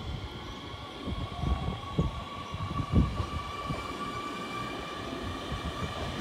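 Nishitetsu 7000 series electric train pulling out of the station, giving a steady electrical whine as it accelerates over a low rumble of wheels on rail, with a few low thuds.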